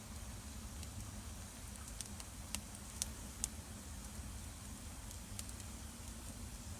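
Wood campfire burning, with scattered sharp crackles and pops, a few louder ones near the middle, over a steady low rumble.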